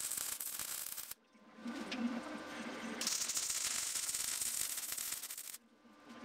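Electric welding arc crackling and sizzling as nuts are welded onto steel: a burst of about a second, a brief break and a softer stretch, then a longer burst of about two and a half seconds.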